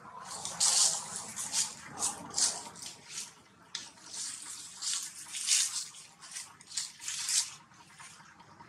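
Dry leaf litter rustling and crackling in short irregular bursts as monkeys shift and a baby macaque kicks about on the ground.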